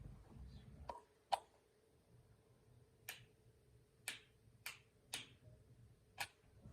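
A series of six sharp clicks, irregularly spaced about a second apart, the first one the loudest: the switches and thermostat control of a HELLER oil-filled electric heater being clicked while trying to start it, with no heater sound answering.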